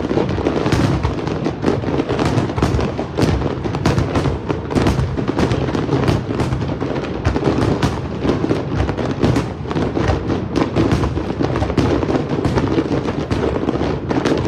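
Fireworks display going off: an irregular, unbroken run of bangs and crackles, several a second, over a continuous rumble.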